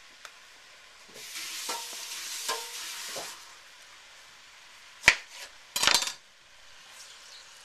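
A kitchen knife cutting a lime in half on a plastic cutting board: a sharp knock of the blade hitting the board about five seconds in, followed by a short clatter. Before it, a couple of seconds of rustling with light knocks.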